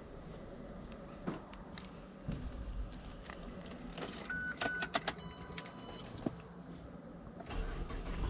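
Car keys jangling with clicks and knocks inside a car, then two short electronic beeps and a held dashboard chime. Near the end a low engine rumble sets in as the car starts.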